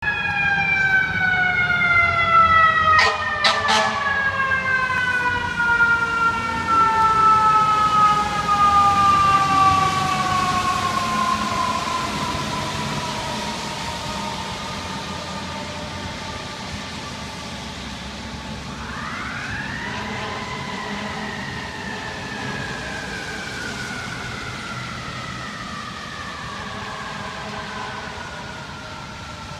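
Fire engine's mechanical siren winding down slowly from a high wail, then wound up quickly again a little past the middle and left to coast down once more, fading as the engine moves off. Two short sharp cracks sound about three seconds in, over steady street noise.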